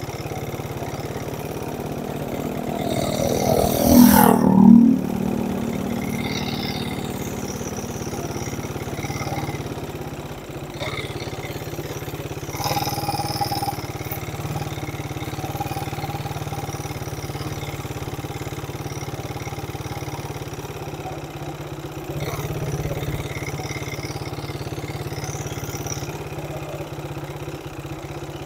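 A vehicle engine running steadily while under way. About four seconds in, a louder vehicle passes close by, its pitch falling as it goes.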